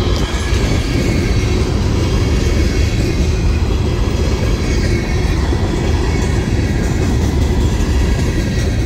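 Loaded trash-train freight cars of Norfolk Southern train 62V rolling past close by: a steady heavy rumble of steel wheels on rail, with a light clickety-clack.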